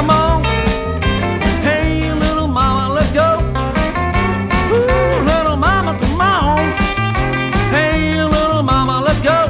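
Rock and roll instrumental break: an electric guitar plays a lead solo full of string bends over a driving bass line and a steady drum beat.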